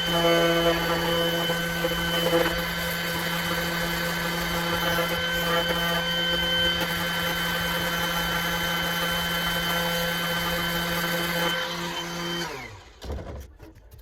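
Electric jigsaw running steadily while cutting out a circle, a motor whine over cutting noise. Near the end it is switched off and winds down.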